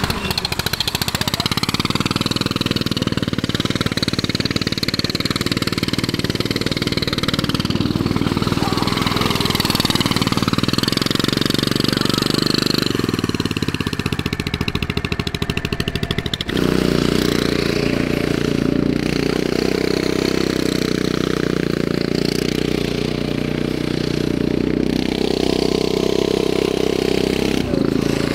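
Turbocharged, fuel-injected Predator 420cc single-cylinder engine on a go-kart running under load as the kart is driven, its pitch rising and falling with the throttle. The sound changes abruptly a little past halfway through.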